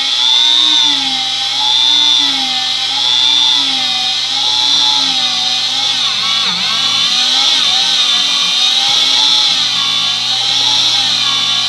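Electric motor of an HDPE butt-fusion welding machine running with a loud, continuous whine that wavers up and down in pitch about every second and a half.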